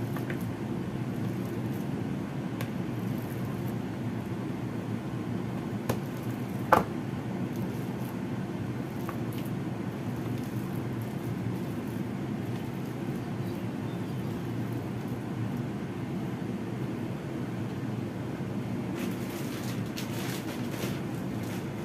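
A steady low hum with a few clicks and knocks of a metal potato masher against a ceramic bowl while cooked pumpkin is mashed; the sharpest knock comes about seven seconds in.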